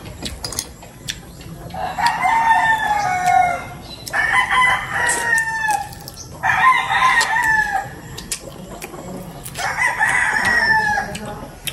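Rooster crowing four times, each crow about a second and a half long and falling slightly in pitch at its end, a couple of seconds apart.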